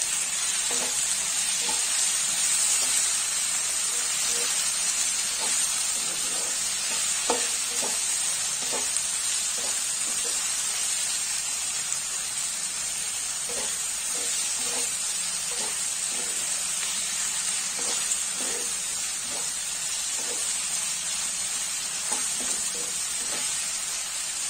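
Onion-tomato masala sizzling steadily in a pan while the tomatoes soften with the salt, with a spoon stirring through it and clicking lightly against the pan now and then.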